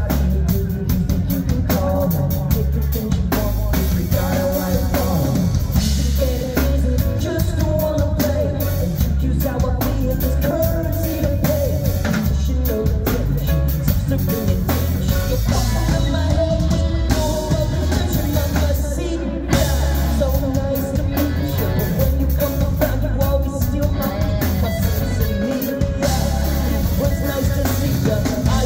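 Live rock band playing a song: electric guitar, electric bass, keyboards and drum kit, with a lead singer's vocals.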